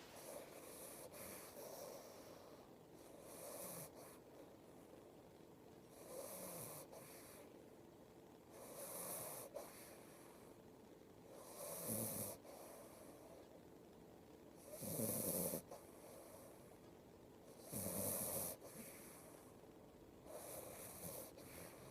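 Slow, regular snoring, one snore roughly every three seconds, each a low rattle with a breathy hiss; the snores in the middle stretch are the loudest.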